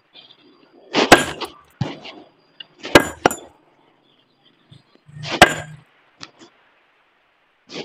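Sledgehammer blows on a large rock as it is being split by hand: four heavy, ringing strikes about two seconds apart, the second followed by a quick lighter knock.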